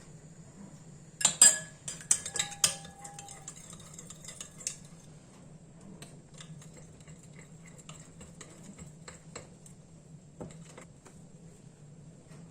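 Kitchen utensils and dishes clinking during food preparation: a quick run of loud clinks about a second in, one of them ringing briefly, then lighter scattered taps and clicks.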